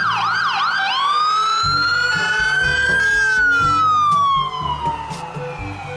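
Fire engine's electronic siren on a fast yelp, switching about a second in to a slow wail that rises for about two seconds, then falls away, with a new rise starting near the end. Low background music plays underneath.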